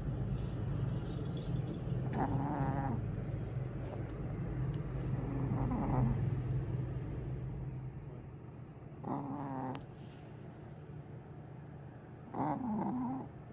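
A pet snoring: a short, pitched snore about every three and a half seconds, four times, over a low steady rumble that fades about halfway through.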